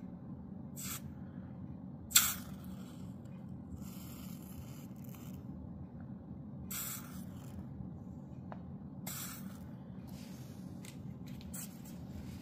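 Hot tip of a 15 W USB rechargeable soldering iron, heated to about 350 °C, sizzling in a glass of water in short hissing bursts, the sharpest and loudest about two seconds in, over a low steady hum.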